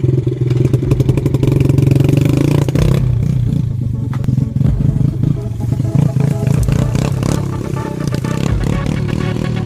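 Yamaha Moto-4 90cc ATV engine running steadily, then from about three seconds in revving up and down unevenly.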